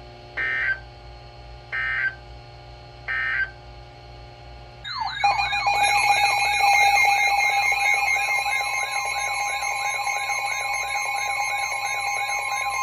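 Emergency Alert System signals from a weather radio: three short data-burst squawks about a second and a half apart, the end-of-message code closing a severe thunderstorm warning. About five seconds in, a loud warbling electronic alert siren starts and keeps going, and a steady tone joins it near the end.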